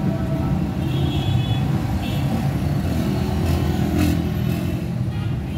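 Busy street traffic heard from within it: motorcycles, auto-rickshaws and cars running close by in a steady low rumble.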